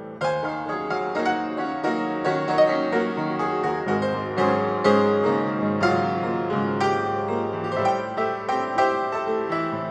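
Background piano music: a gentle piece with notes struck several times a second, each ringing out briefly.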